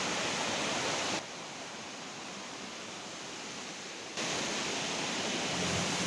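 Steady rushing of a waterfall, an even hiss of falling water. It drops quieter and duller from about one to four seconds in.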